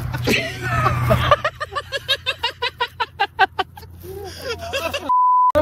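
Men's voices over a steady low engine-like hum, then near the end a short pure single-pitch beep that blanks out all other sound, a censor bleep laid over a word.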